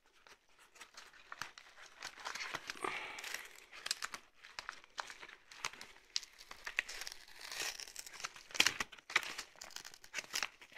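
A mailing envelope crinkling and crackling as hands handle it and tear at it to get it open, with a few louder bursts near the end.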